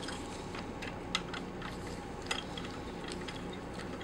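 A few light metallic clicks and ticks, two of them sharper, as screws are turned down on the vacuum pump's piston block, over a steady low room hum.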